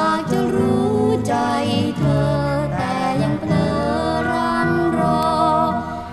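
A 1970s Thai pop song played from a vinyl record: a band playing under a wavering lead melody, dipping briefly near the end.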